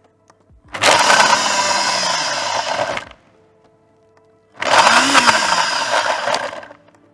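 Red Smeg countertop blender pulsed twice, each run about two seconds long, grinding hard chunks of macadamia praline. In each burst the motor speeds up and then winds down under a loud crunching grind.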